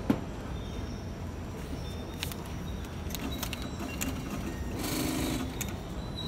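Mechanical hum at a metro station ticket gate with escalators running, with a sharp click just after the start, scattered ticks, and a short mechanical buzz about five seconds in.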